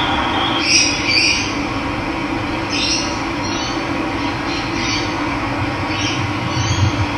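Steady rush of running water, with a bird chirping high, short calls about every second over it.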